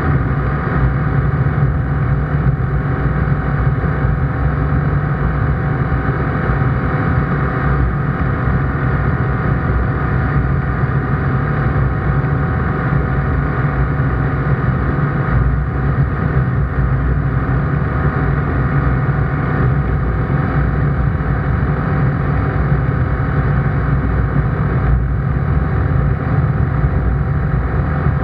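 The ICP Bingo ultralight's engine and propeller droning steadily in flight, heard from inside the cockpit.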